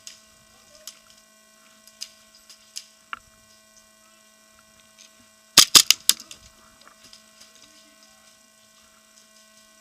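A short burst of about five sharp airsoft gun shots, fired in quick succession about halfway through, over a steady faint hum. A few single faint clicks come earlier.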